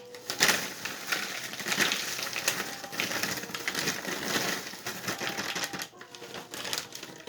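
Potato chip bag crinkling and rustling as it is handled, with the chips rattling inside, a dense run of small crackles and clicks.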